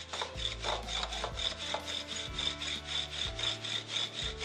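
Wooden rolling pin rolling paratha dough thin on a flour-dusted marble counter: a rubbing sound in quick back-and-forth strokes, about three a second.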